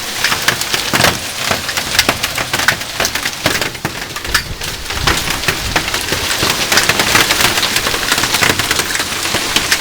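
Hailstones pelting a wooden deck in a heavy hailstorm: a loud, dense, unbroken clatter of hard impacts over the hiss of rain.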